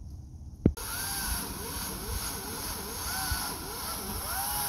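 Gasoline chainsaw running at high throttle, its pitch rising and falling as it revs. It starts suddenly after a click just under a second in.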